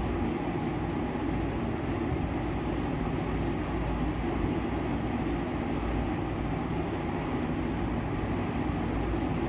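A steady mechanical hum and whir, unchanging throughout.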